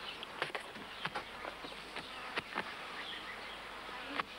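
Feathers being plucked by hand from poultry: irregular short snapping and rustling as tufts are pulled out, over a steady outdoor background with faint bird chirps.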